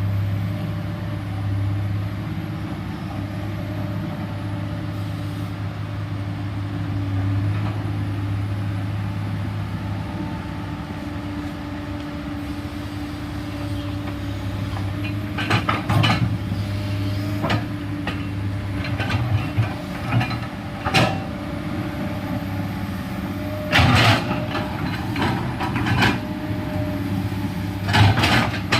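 Komatsu PC210LC hydraulic excavator's diesel engine running steadily under work, with a series of sharp metal clanks and knocks from the bucket and digging from about halfway through, loudest near the end.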